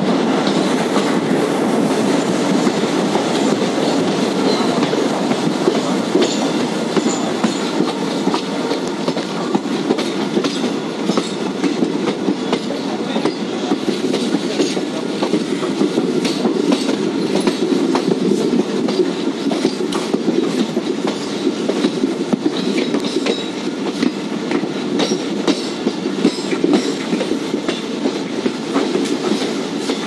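Passenger train coaches running along the track, heard from the coach doorway: a steady rumble of steel wheels on rail, broken by frequent clicks and clacks as the wheels pass over rail joints.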